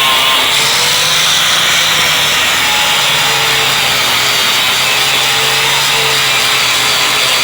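Corded Makita grinder with a Diablo 40-grit disc grinding a stair surface: a loud, steady abrasive rasp over the motor's whine, the pitch wavering slightly as the disc is pressed into the work.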